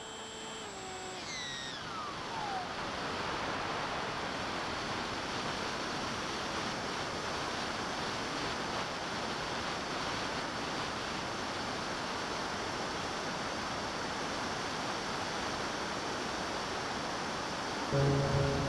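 Steady rush of airflow noise on an FPV plane's onboard camera in flight. In the first couple of seconds a whine falls steeply in pitch and fades out.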